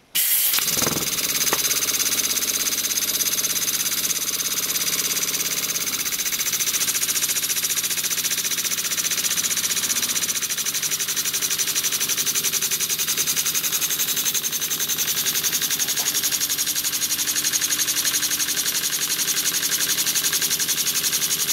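Small two-cylinder model steam engine, still unfinished, running fast on its one working cylinder on a first trial run: a steady hiss with a rapid, even beat that starts suddenly and keeps up throughout.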